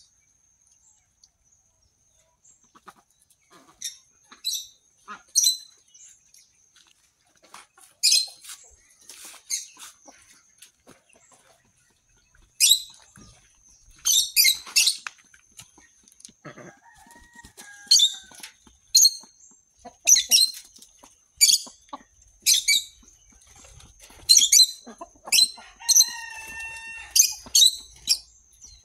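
Short high-pitched bird chirps repeat every second or two over a faint steady high tone. A lower, pitched fowl call comes about halfway through, and a longer one near the end.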